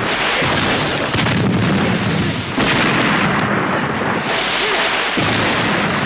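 Explosion sound effects: dense, continuous blast noise with fresh blasts about a second in and again past the middle.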